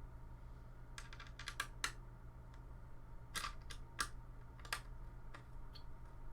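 Small sharp clicks and taps of the cooler's metal mounting pegs and nuts being handled and fitted into the motherboard's mounting holes: a quick cluster about a second in, then single clicks spread through the rest, over a low steady hum.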